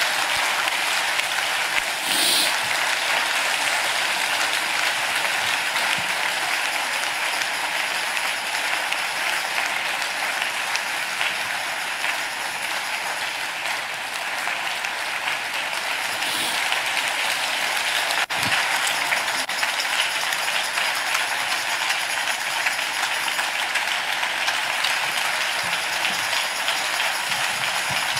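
A large audience applauding steadily without a break, a sustained ovation of appreciation.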